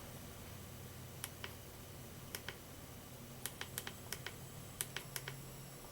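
About a dozen light, sharp clicks at irregular intervals, with a faint steady hum underneath.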